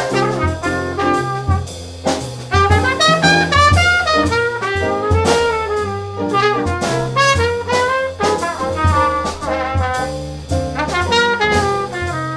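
A small jazz combo playing: a trumpet carries a moving melodic line over piano chords, a walking upright bass and drums keeping time with steady cymbal strokes.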